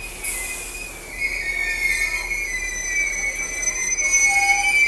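Steel wheels of a heritage passenger train's carriages squealing on the rails as the train rolls past: a wavering, high-pitched squeal of several tones that grows louder toward the end.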